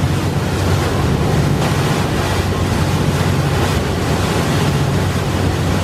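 Steady rush of wind on the microphone and river water, over the low steady drone of a passenger launch's engine running under way.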